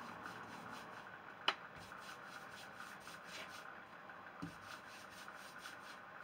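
Briwax being rubbed by hand into a stripped pine door: a series of soft rubbing strokes. A single sharp click about a second and a half in, and a dull thump a few seconds later.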